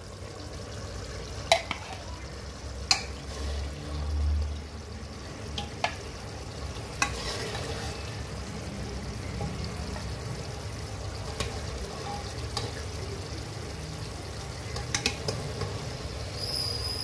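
Metal ladle scooping stew in an aluminium pressure cooker, knocking sharply against the pot a handful of times as the stew is spooned out, over a steady hiss.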